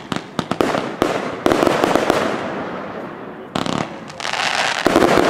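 Fireworks display: a rapid run of sharp bangs and cracks in the first second, then a dense crackling hiss. Another burst of bangs comes in near the end.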